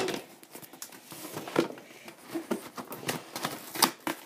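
Irregular taps, clicks and rustles of a cardboard package and its wrapping being handled and opened.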